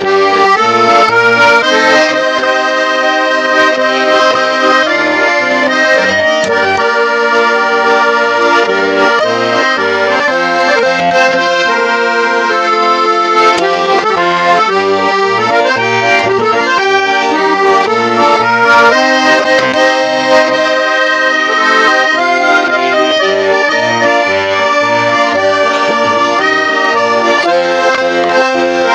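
Accordion playing an instrumental interlude of a Russian gypsy-style song: a melody of held notes over a steady, evenly paced bass-and-chord accompaniment.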